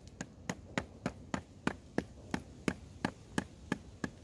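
The small saw blade of a multi-tool sawing through a thin dry stick, in quick even strokes of about three a second, each one a short sharp rasp.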